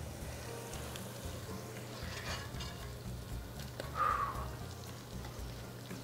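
Hot oil sizzling faintly in a pot of just-fried onion, garlic and serrano chiles, with a brief scrape of a metal utensil against the pot about four seconds in.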